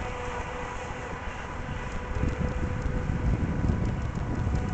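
Wind buffeting the microphone, heavier from about two seconds in, over a faint steady whine from the motor of a radio-controlled model boat running on the water.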